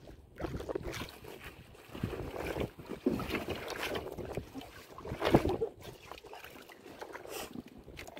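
Choppy sea water slapping and sloshing against a small wooden outrigger boat, with wind buffeting the microphone. Scattered knocks on the hull, the loudest about five seconds in.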